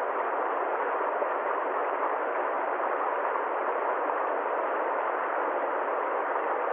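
Steady, unchanging rushing noise with no rhythm, pitch or separate events, limited to a middle range with nothing deep and nothing high.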